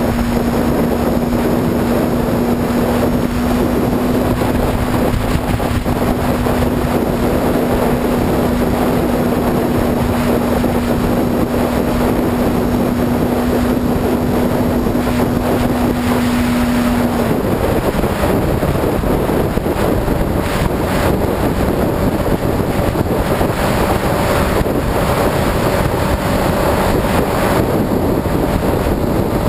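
Honda CBR motorcycle engine running at a steady cruising speed under a heavy rush of wind on the microphone. Its steady engine note changes to a higher one about two-thirds of the way through.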